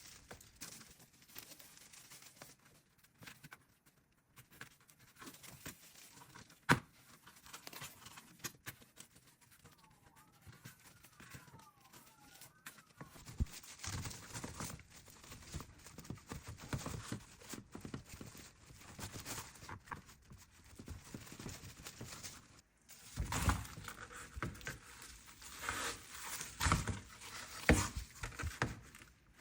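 Irregular rustling and crinkling of dry craft material being handled, busier in the second half, with scattered clicks and one sharp tap about seven seconds in.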